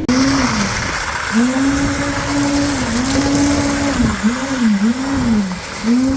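A small motor repeatedly speeding up and falling back, its pitch rising and dropping in short swells, over a steady hiss.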